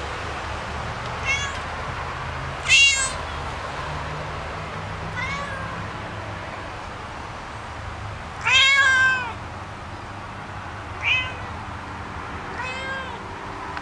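A domestic cat meowing repeatedly, about six separate meows, with the second and the fourth the loudest and the fourth drawn out longest.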